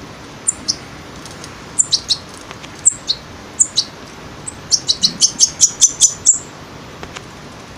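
Two-week-old European goldfinch chick giving short, high begging chirps as it is hand-fed, scattered at first and then a rapid run of about a dozen around five seconds in.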